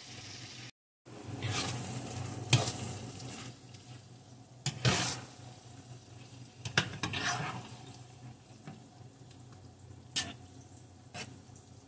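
Metal spoon stirring spaghetti through thick cream sauce in a nonstick frying pan: wet swishing strokes and a few sharp clinks of the spoon against the pan, over a faint sizzle. The sound cuts out briefly about a second in.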